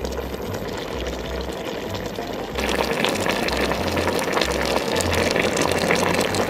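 A pot of dark braising liquid with duck pieces, potato slices and quail eggs bubbling at a simmer. The bubbling gets louder and brighter about two and a half seconds in, over background music with a steady bass pulse.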